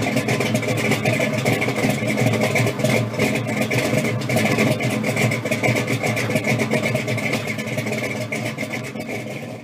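A car engine running with an uneven, pulsing note, fading out near the end.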